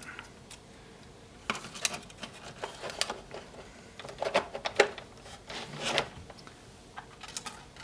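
3D-printed plastic hood of an RC snowmobile being handled and fitted onto its chassis: scattered light plastic clicks and knocks as it is hooked on at the front and pressed down.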